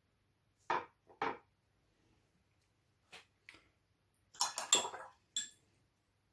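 Painting equipment being handled: two sharp knocks a little under a second in, a few faint ticks, then a quick run of hard clinks, like dishes, between four and five seconds in.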